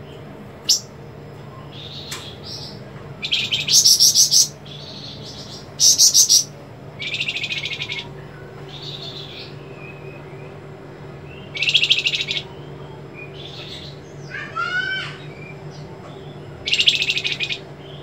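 A caged flamboyan songbird singing in sharp, rapid buzzing trills of about half a second to a second each, five in all, with short high notes between them and a run of quick sliding chirps a little after the middle.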